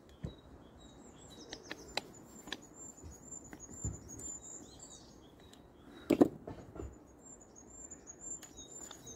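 Light clicks and taps of a small screwdriver and metal parts as the tiny Torx screws holding an EGR valve's electric motor are undone, with a louder knock about six seconds in. Birds chirp in the background.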